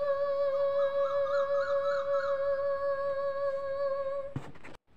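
A woman's voice holding one long, steady sung note at the end of a Nepali song, cut off about four seconds in by a short crackle.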